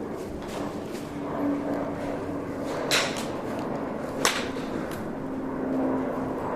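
A golf club swung in a practice drill: a swish about three seconds in, then a sharp click of a strike about a second later, over a steady low hum.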